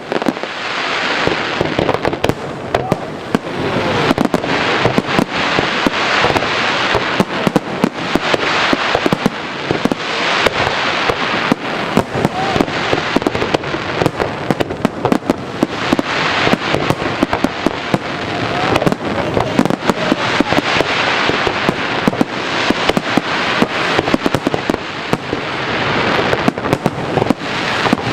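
Fireworks display: a dense, continuous crackle of many rapid bangs and pops, with no break.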